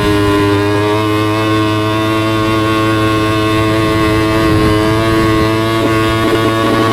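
Yamaha R25's parallel-twin engine through an SC Project exhaust, running at steady high revs with a held, slightly sagging note. The pitch wavers briefly near the end.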